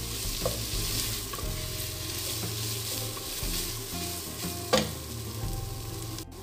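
Onion, ginger-garlic, spring onion and fried chicken pieces sizzling in oil in a stainless steel pot while a wooden spatula stirs and scrapes them around, with small clicks of the spatula throughout. A single sharp knock about three-quarters of the way through.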